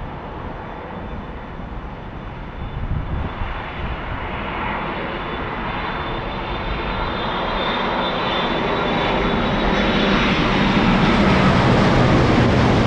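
Boeing 787-8 Dreamliner's jet engines on final approach: a steady rushing engine noise with a high fan whine, growing steadily louder as the airliner comes nearer.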